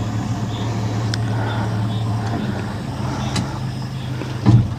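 A boat's motor running steadily with a low, even hum, and a single low thump near the end.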